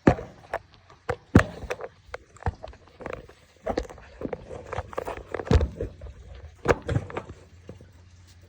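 Handling noise: irregular knocks, clicks and rustling as the recording phone is picked up, moved and propped in place, the loudest knocks right at the start and about a second and a half and five and a half seconds in.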